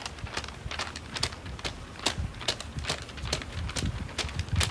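A sheet of glossy paper repeatedly patted down onto wet spray paint on a painting board and lifted off again, making quick, irregular sticky pats and crackles about three times a second.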